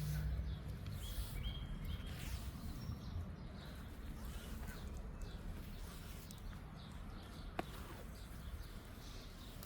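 Steady outdoor background rumble with a few short, high bird chirps between about one and two seconds in.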